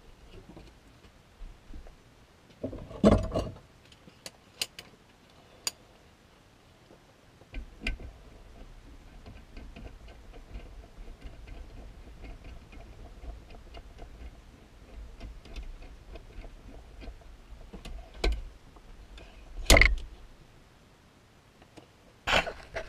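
Scattered metal knocks and clinks as a heated aluminium motorcycle engine case half is handled and set down on a workbench. The loudest knocks come about three seconds in and twice close together near twenty seconds.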